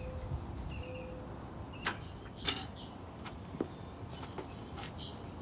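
A few scattered sharp metallic clicks and clanks from a vehicle jack and wheel being worked during a tire change, the loudest about two and a half seconds in.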